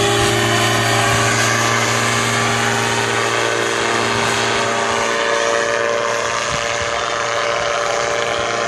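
Powered parachute's engine and propeller running steadily in flight, with a constant pitch, getting gradually a little quieter.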